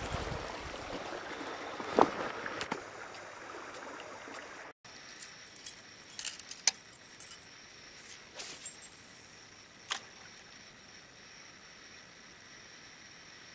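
A shallow rocky stream runs with a steady rush, with a sharp knock about two seconds in, as of gear or a foot against stones. After a cut it is much quieter, with a few short, sharp clicks and ticks between about five and ten seconds in.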